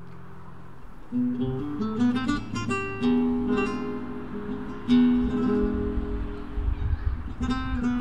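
Acoustic guitar playing flamenco-style music: a held chord ringing, then from about a second in a run of plucked notes and strummed chords, with a hard strum about five seconds in. Low thuds build under the guitar in the second half.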